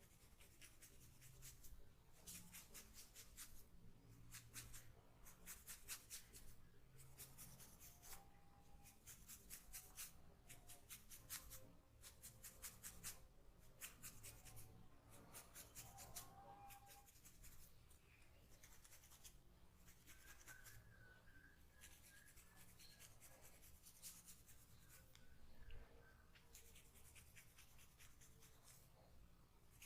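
A comb drawn through hair and over the scalp in repeated strokes. Each stroke is a faint, fine scratching of many quick tooth clicks, about one stroke every second or two.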